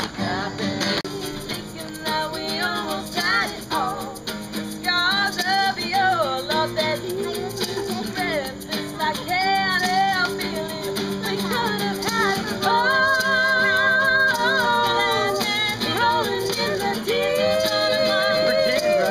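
Two acoustic guitars strummed while a group of voices sings a song together.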